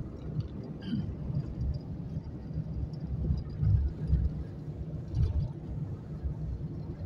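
Car cabin noise while driving on a gravel road: a low, uneven rumble from the car and its tyres on the rough surface, swelling and easing with the bumps.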